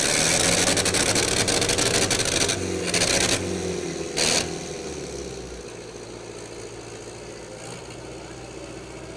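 Tractor engine at full throttle under heavy load in a tug-of-war pull. For about the first three and a half seconds it is loud and harsh with a rapid rattle, with one short blast again just after four seconds. It then settles to a lower, steadier running note.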